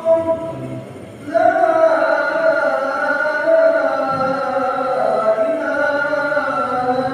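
A man's voice chanting in long, drawn-out melodic phrases, with a short break about a second in before a long held phrase.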